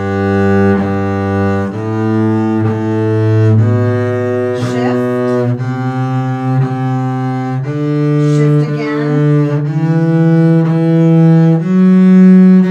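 Double bass bowed slowly up a G major scale on its G string, from the open G through about eight rising steps. Each pitch is held for roughly two seconds, bowed as two notes, and the last step reaches the G an octave above.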